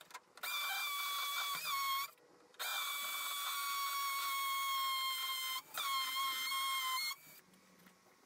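Power drill running in three bursts: a short one, a long one of about three seconds, then a shorter one. Its whine holds a mostly steady pitch with brief small dips.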